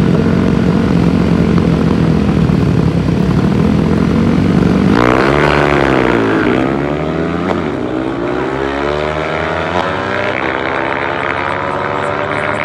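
High-performance motorcycle engines at a half-mile speed run: a steady, loud engine drone. About five seconds in, a new engine note dips, then climbs steadily in pitch as a bike accelerates hard.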